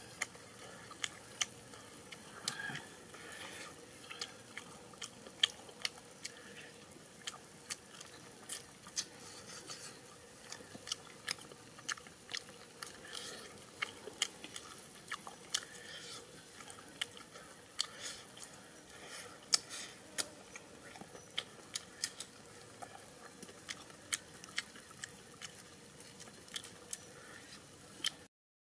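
A person chewing and biting into grilled tire track eel, with frequent sharp, irregular crunches and mouth clicks. The sound cuts off near the end.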